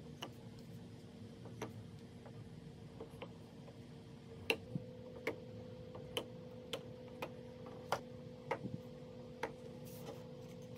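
Small plastic dropper bottles set down into the drilled holes of a wooden holder: a string of light clicks and taps, coming about every half-second to second from the middle on.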